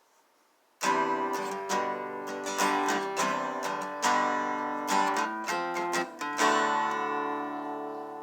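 Acoustic guitar music, strummed chords ringing out one after another, beginning about a second in after near silence.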